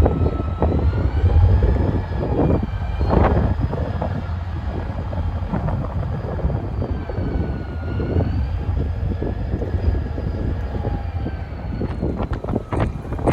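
Electric passenger train running past: a low rumble under a motor whine whose pitch dips and rises, with wheels clicking over the rail joints, the clicks bunching near the end.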